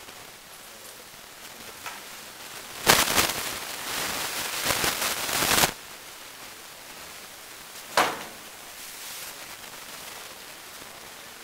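Rattan swords striking shields and armour: a rapid flurry of blows and clatter for about three seconds, then a single sharp blow a couple of seconds later.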